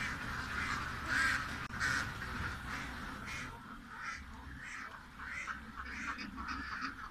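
A flock of ducks quacking, many short overlapping calls in a continuous chorus, loudest about a second in.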